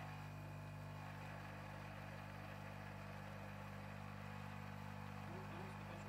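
De'Longhi Nescafé Dolce Gusto Jovia capsule machine brewing: its pump runs with a steady low hum as a thin stream of hot liquid pours into a mug.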